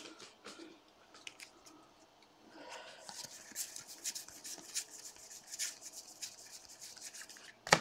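Baseball trading cards being flipped one at a time through a stack held in the hand: faint sliding and light ticks of card stock against card stock, getting busier about two and a half seconds in, with one sharper click near the end.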